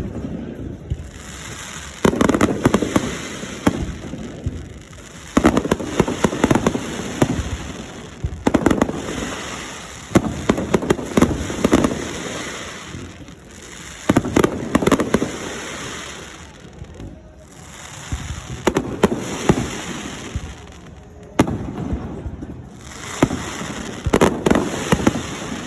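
Fireworks display: aerial shells bursting in rapid clusters every few seconds, with loud bangs and crackle between the volleys.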